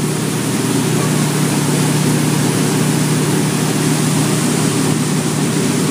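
Ski boat's engine running steadily at towing speed, a constant hum under the loud rush of water churning in the wake.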